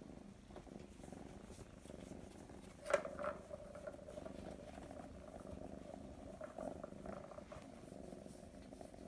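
A tabby-and-white kitten purring steadily while being stroked, with one sharp click about three seconds in.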